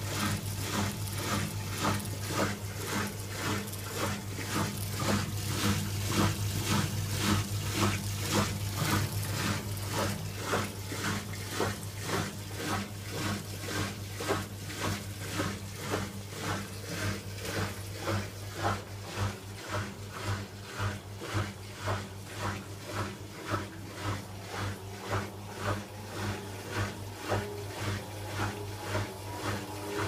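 Hoover WDYN 11746 PG8 washer-dryer spinning with an empty drum: the inverter motor drives the drum pulley through the belt, giving a steady hum under a regular pulsing rhythm. The inverter motor runs quietly.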